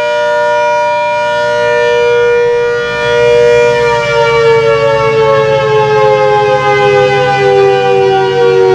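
ACA Hurricane 130 MKII outdoor warning siren sounding a steady tone, whose pitch then begins to fall slowly about three seconds in and keeps falling.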